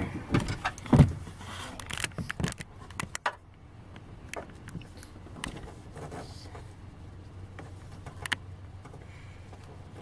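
Scattered knocks and light metallic clicks from parts and screws being handled against a minivan's sliding door while the lock actuator is held in place, loudest about a second in, then fainter, sparser ticks.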